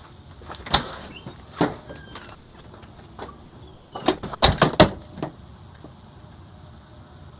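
A series of sharp knocks and clicks heard through a Ring doorbell's microphone: two single knocks in the first two seconds, then a quick cluster of about five about four seconds in, and one last knock after it.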